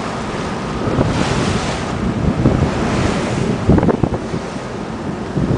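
Wind buffeting the microphone and water rushing and splashing against the hull of a water taxi running over choppy water, with a louder splash about four seconds in as the boat bounces on the waves.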